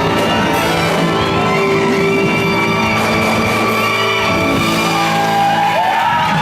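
Loud band music with instruments and a steady level, with a large-hall sound. Near the end, shouts and cheering begin to rise over it.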